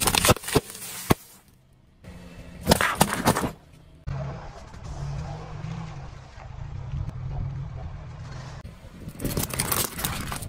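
A car running slowly as its tyres roll over and crush objects: loud crunching and crackling bursts at the start, about three seconds in and near the end, with two sharp cracks within the first second over a low engine rumble.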